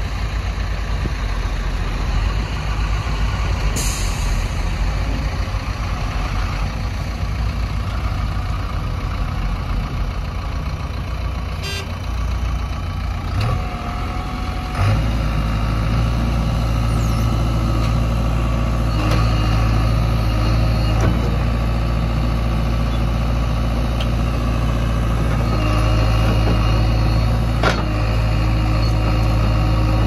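JCB 3DX backhoe loader's diesel engine running steadily, stepping up to a louder, higher drone about halfway through as it is throttled up to work the digging arm. A short hiss comes about four seconds in.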